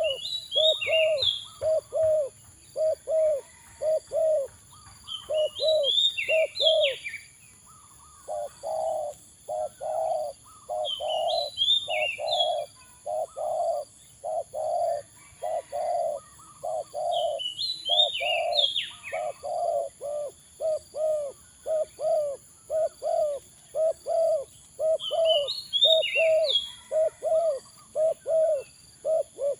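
Spotted doves cooing in a long run of evenly repeated low notes, with the notes coming thicker after about eight seconds. A short burst of high chirping notes comes about every six seconds, over a steady high-pitched whine.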